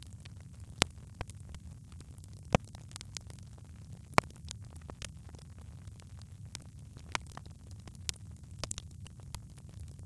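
Wood logs burning in a fireplace: a steady low rumble of flames with scattered sharp crackles and pops, the loudest pops about one, two and a half and four seconds in.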